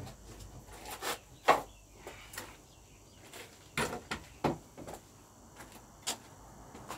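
A handful of sharp knocks and clicks from fluorescent tubes and their fixture being handled while a tube is changed, the loudest about a second and a half in.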